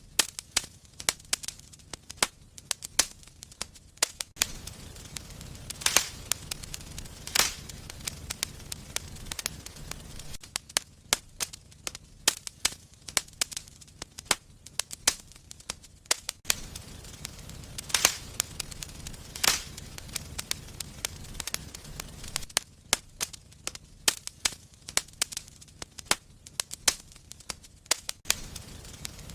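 Wood fire burning in a fireplace, crackling with frequent sharp snaps and pops and a few louder pops. A low rush of flame comes and goes beneath the crackle.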